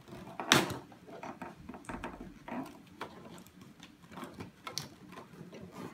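Cardboard box and plastic packaging rustling and crinkling as a toy is pulled out of it by hand, with irregular crackles and one loud crackle about half a second in.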